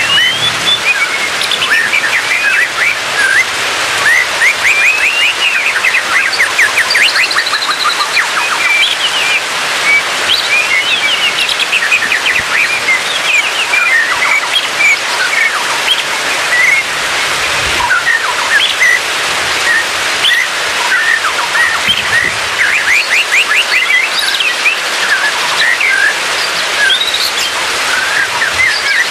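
White-rumped shama singing a varied, continuous run of whistles, chirps and rapid trills, over a steady hiss.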